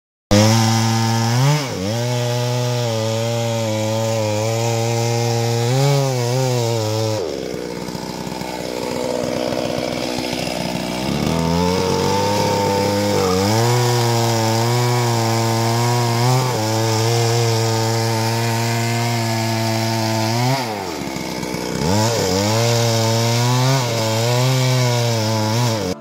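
Two-stroke Stihl chainsaw running at high revs while cutting through a coconut palm trunk. The engine note dips and recovers several times as the chain loads up in the wood, with the deepest sag lasting a few seconds about a third of the way in.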